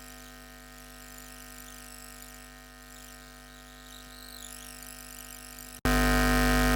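Steady electrical hum and buzz from faulty recording equipment, many fixed tones held at once; near the end it drops out for an instant and comes back much louder.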